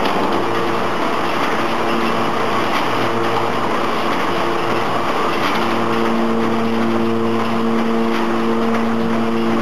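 SY-HD38 automatic square-bottom paper bag making machine running: a loud, steady mechanical din with several humming tones that come and go, one low hum held from about halfway through.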